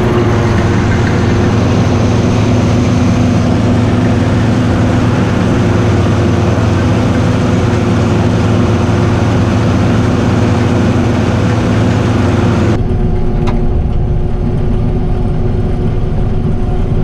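Heavy farm machinery running during corn silage harvest: a loud, steady diesel engine hum with a dense mechanical rush over it. About 13 seconds in, the rush drops away abruptly and the lower engine hum carries on.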